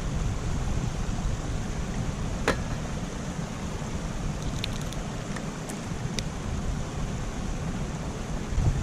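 Wind buffeting the microphone over a steady outdoor rush, with one sharp click about two and a half seconds in and a few faint ticks a couple of seconds later.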